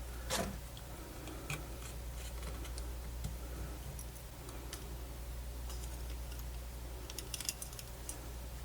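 Small, scattered clicks and taps of tiny screws and casing parts being handled and fitted, with a sharper click about half a second in and a quick run of clicks near the end, over a low steady hum.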